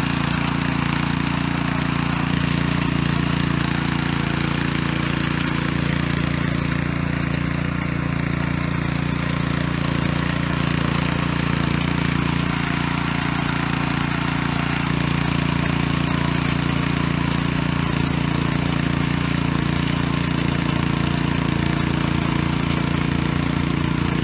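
Husqvarna front-tine garden tiller's small petrol engine running steadily as the machine tills soil.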